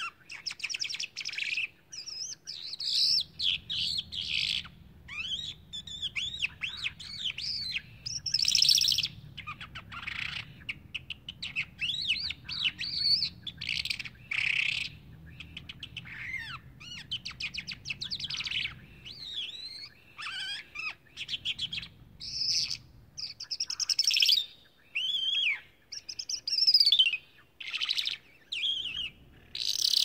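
Small songbird singing a long, varied song of rapid chirps, trills and whistled notes that slide up and down, in quick phrases with short pauses between them.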